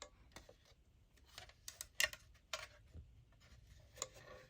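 Scattered light clicks and knocks as fire alarm horn strobes and a speaker strobe are picked up, turned over and set down; about eight separate knocks, the loudest about two seconds in.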